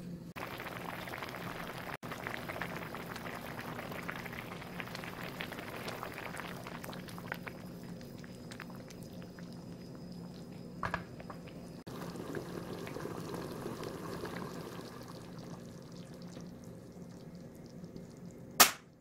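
Thick chili-oil sauce of mapo soft tofu simmering in a pan, a steady bubbling with many small pops. Near the end there is one sharp click.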